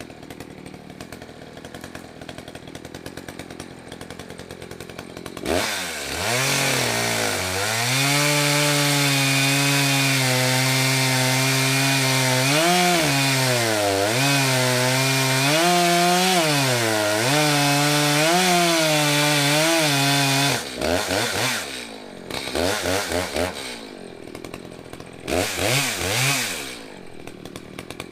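Chainsaw idling, then held at full throttle in a cut for about fifteen seconds, its pitch dipping and wavering as it loads up in the wood. After that it is blipped in short revs and drops back toward idle.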